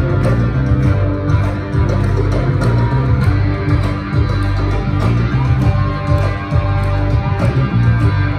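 Tuareg desert-blues band playing live: electric guitars and bass over a steady beat, with hand-clapping.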